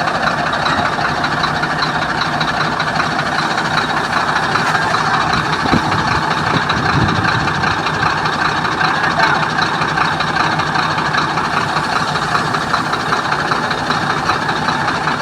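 Heavy diesel engine running steadily, a continuous loud mechanical drone with no marked revving.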